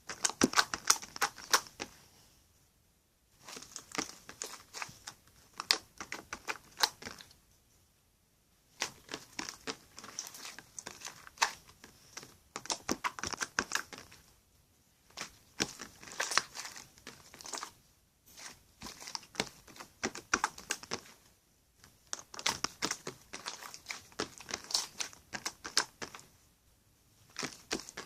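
Slime being kneaded and pressed by hand, making dense clicking and crackling pops. These come in spells of a few seconds with short pauses between them.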